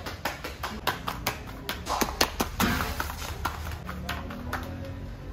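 Flatbread dough slapped rapidly from palm to palm as it is flattened by hand, about five sharp slaps a second, thinning out to a few slaps by about four seconds in.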